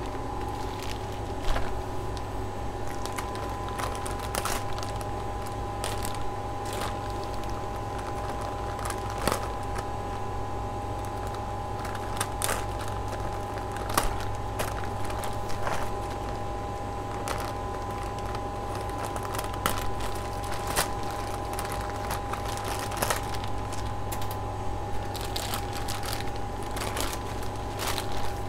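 Plastic grow bag crinkling and rustling, with scattered crackling clicks, as a cluster of pioppino mushrooms is handled and pulled free of its block; a steady machine hum runs underneath.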